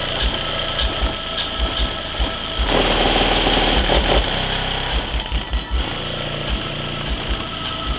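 Bass-heavy music played through a car audio system's two JL Audio W7 12-inch subwoofers on an Audioque 2200D amplifier, heard from outside the car at the trunk lid. It plays as a run of short, repeated deep bass hits, with longer held bass notes from about three seconds in.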